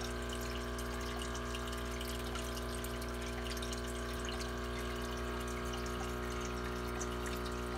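Hang-on-back aquarium filter running: a steady motor hum with water trickling back into the tank.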